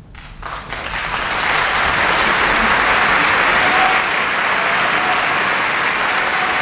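Audience applause breaking out just as the music ends: it builds over the first second or so, then holds steady and loud.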